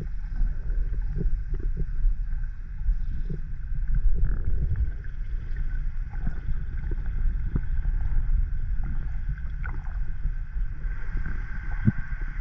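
Underwater sound picked up by a GoPro in its waterproof housing: a steady low rumble with scattered small clicks and knocks, and a faint steady higher hum that grows slightly stronger near the end.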